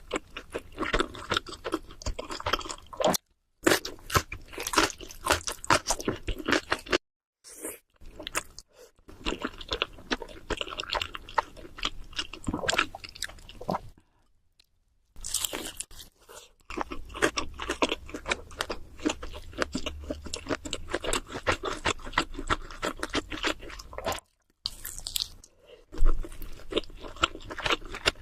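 Close-miked chewing and crunching of cheese seafood pizza, a dense run of crackly bites and wet mouth clicks, broken a few times by abrupt total silences.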